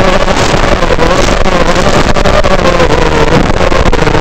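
Realacc X210 FPV racing quadcopter's motors and propellers whining, the pitch rising and falling as the throttle changes, with frequent crackles on the audio.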